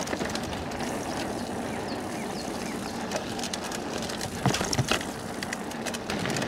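Mountain bike rolling along a dirt trail: steady tyre noise on the dirt with scattered rattling clicks from the bike, and a couple of louder knocks about four and a half seconds in.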